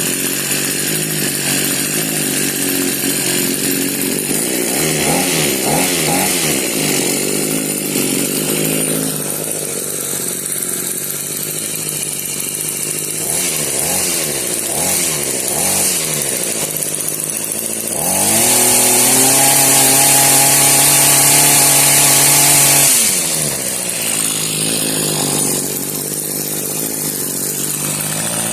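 Echo HC2020 hedge trimmer's small two-stroke engine idling unevenly on its new carburetor, its speed wavering up and down as the idle is being set. About 18 seconds in it is revved up to a higher, louder speed, held there for about five seconds, then drops back to idle.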